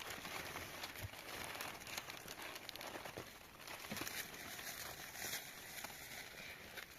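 Rustling and crinkling with many small scattered clicks and crackles.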